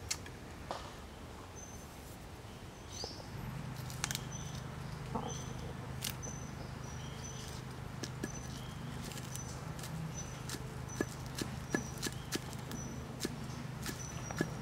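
Large knife chopping green onions on a wooden log: irregular sharp knocks of the blade striking the wood, coming faster in the second half.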